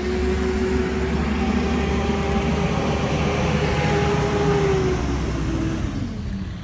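A passing engine: a loud, steady drone that sinks slightly in pitch and fades out near the end, as a vehicle goes by.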